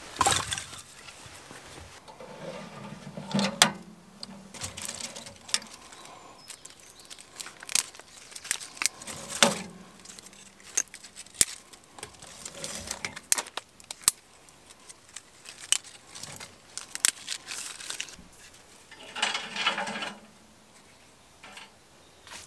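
Thin dry twigs snapped by hand into kindling, a string of sharp irregular snaps with some rustling of the sticks, and the twigs laid onto a wood stove's metal grate.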